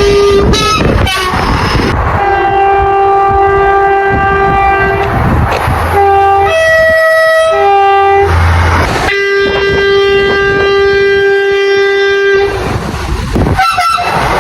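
Train horn sounding a series of blasts over the rumble of a moving train. There are short toots, then a long blast of about three seconds. A short blast follows, then a brief higher note, another short blast, and a final long blast of about three seconds.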